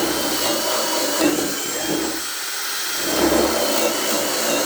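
Ryobi One+ HP hammer drill boring with a 1/2-inch bit on speed 2, running continuously under load with a steady high motor whine.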